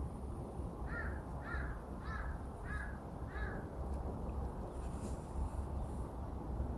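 A crow cawing five times in a steady series, about two calls a second, over a steady low background rumble.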